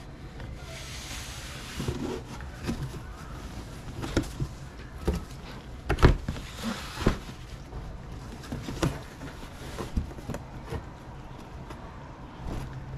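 Fabric being handled and packed back into a box: rustling with scattered soft thumps and knocks, the loudest about six seconds in.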